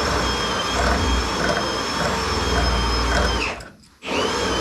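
A small electric motor, like a handheld power tool or shop vacuum, runs steadily with a high whine for nearly four seconds, stops, then starts again near the end. Its pitch rises as it spins up and falls as it winds down.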